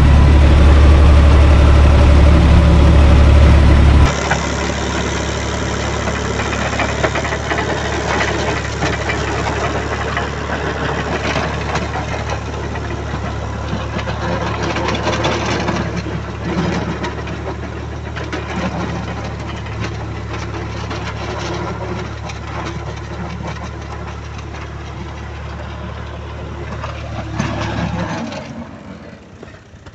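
Universal U445 DT 4x4 tractor's diesel engine running steadily while it drives a rotary tiller through garden soil. For the first four seconds it is heard from inside the cab, loud with a strong deep hum; then it is heard from outside, quieter and rougher, and it drops away near the end.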